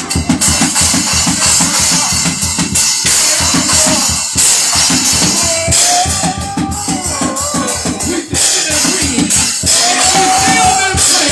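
Live gospel praise music led by a drum kit playing a fast, steady beat, with a wash of cymbals over it and a few held melodic notes.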